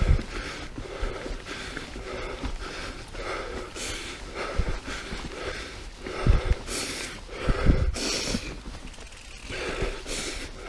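A mountain biker breathing hard on a climb, puffing out breaths every second or two, over the steady rattle of the bike and tyres rolling on a dirt trail, with a few low thumps from bumps.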